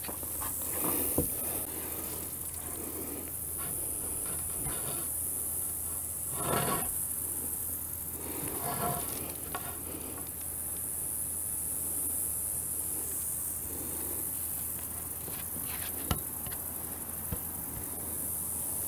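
Steady, high-pitched chorus of insects, with a few light knocks and shuffles as timber is handled.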